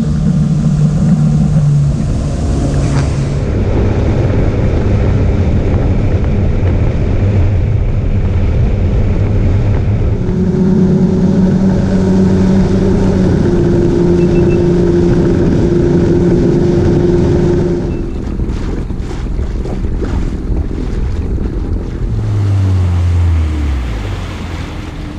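Small boat's engine running under way, with wind buffeting the microphone and water rushing past the hull. Its pitch shifts partway through, then falls near the end as the engine is throttled back.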